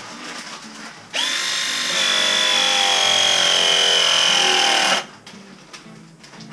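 Cordless power tool working on copper water-heater piping: its motor starts sharply, whines steadily for about four seconds with the pitch sagging slowly as it takes up load, then stops abruptly.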